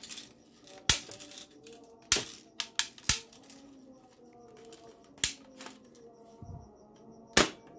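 Hard plastic clicks and clacks from a camouflage toy assault rifle being handled: about seven separate sharp knocks, spaced unevenly, with the loudest near the end.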